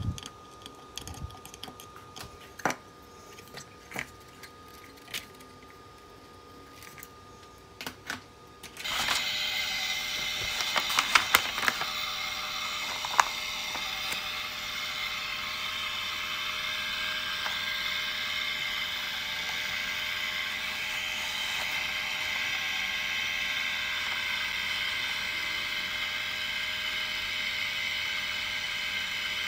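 A few light clicks and knocks from handling the line at the load-cell clamp. About nine seconds in, a small 12 V geared DC motor starts and runs steadily, turning a wooden spool to pull the fishing line in a strength test. There are a few sharper clicks in its first few seconds.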